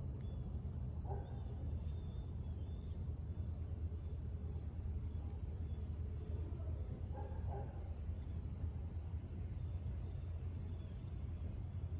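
Insects trilling steadily in a high, evenly pulsing chorus over a low, steady rumble, with a couple of faint short calls.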